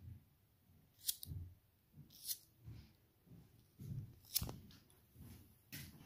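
Thumb rolling the spark wheel of a child-resistant Bic lighter: four sharp metallic scrape-clicks of the wheel against the flint, spaced a second or more apart, with soft handling bumps between them, as the stiff safety wheel is forced round in tries to get a spark.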